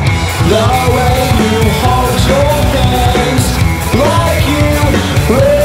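Indie rock song at full volume: electric guitar, bass and drums with a sung vocal line over them.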